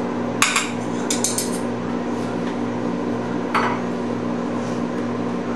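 A utensil clinking against a small metal bowl while stirring: a quick cluster of light taps about a second in and one more past the middle, over a steady low hum.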